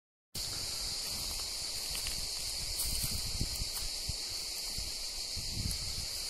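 A steady, high, shrill chorus of cicadas in a sunny pine forest, with occasional low rumbles and thumps on the microphone.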